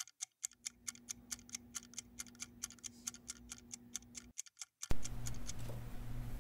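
Waltham size 6, Model 1890 pocket watch movement ticking at an even beat of about five ticks a second. About five seconds in, after a short gap, a steady low hum starts abruptly, with a few fainter ticks.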